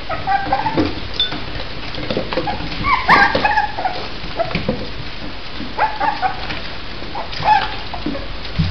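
A litter of West Highland white terrier puppies whimpering and yipping in short high cries, one after another, loudest about three seconds in, as they call for their mother. Their paws scrabble against the side of the whelping box.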